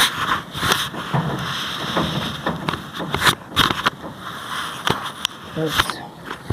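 Several sharp cracks and pops from a chiropractic back adjustment, the joints of the spine releasing under the practitioner's thrusts, with a breath hissing out between them.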